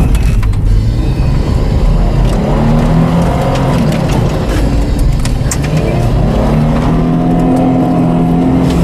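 Jeep engine revving, its pitch climbing and falling about three seconds in, then climbing steadily over the last few seconds, over a heavy low rumble.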